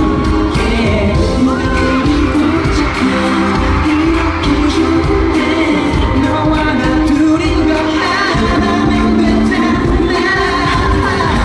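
Live K-pop song played loud through a concert hall's sound system: a man singing into a microphone over a heavy-bassed backing track.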